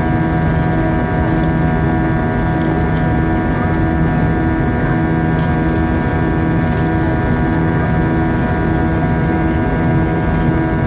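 Steady cabin drone of an Airbus A320-232 in flight: engine and airflow noise with many steady whining tones and a low tone that pulses regularly.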